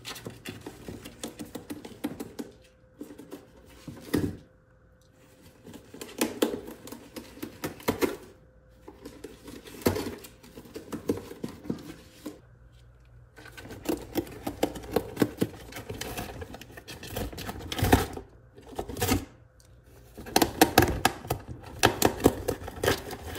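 A prairie dog gnawing and clawing at a cardboard box, shredding it: rapid runs of tearing, scraping and crunching in bursts, with brief pauses between them.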